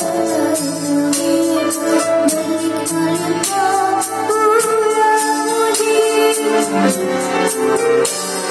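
A girl singing into a handheld microphone over a backing track with a steady drum beat; her held notes waver and bend in short ornamented runs.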